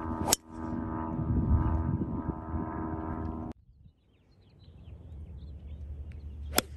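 Two golf shots: a sharp crack of the club striking the ball off the tee about a third of a second in, and a second crack of a shot from the fairway near the end. Between them a steady mechanical hum cuts off abruptly, leaving faint wind-like noise and a few small bird chirps.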